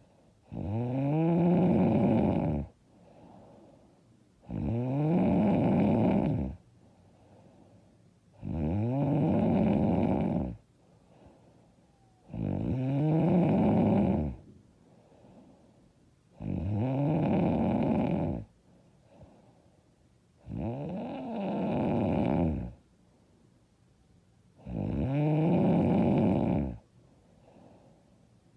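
A woman snoring loudly in a steady rhythm: seven long snores of about two seconds each, coming about every four seconds, each rising in pitch at its start, with much quieter stretches between.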